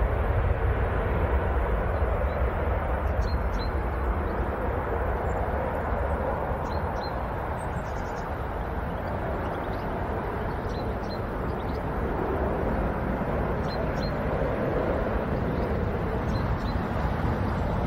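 Jet engines of a British Airways Airbus A320-family airliner at take-off thrust: a steady deep roar through the take-off roll, lift-off and climb-out. Faint short chirps come through every few seconds.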